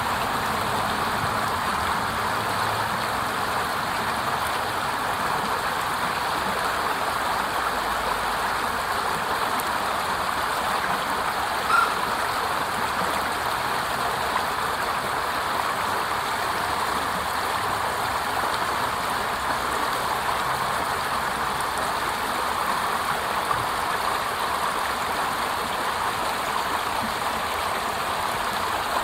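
Small water cascade flowing with a steady rush. A single brief sharp sound comes about twelve seconds in.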